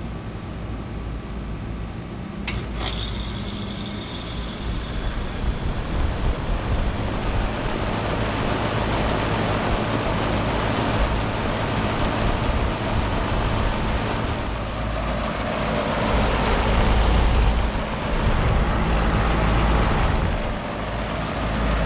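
2009 Payne PH13 central heat pump outdoor unit starting up in cooling mode. A sharp click comes about two and a half seconds in, then the compressor hum and condenser fan noise build over several seconds and settle into steady running.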